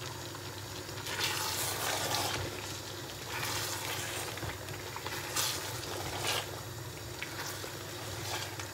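Chicken in a yogurt and cream masala being fried (bhuna) in an aluminium pot: a spatula stirs and turns the pieces in irregular strokes, each bringing a burst of sizzling and scraping. A steady low hum runs underneath.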